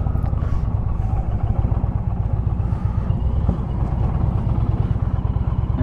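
Motorcycle engine running at low speed through town, heard from the rider's own bike as a steady low rumble.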